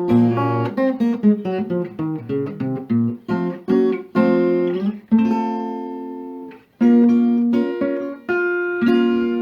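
Acoustic guitar playing alone: a run of plucked notes, then a few held chords. After a short break about two-thirds through comes a last chord that is left to ring.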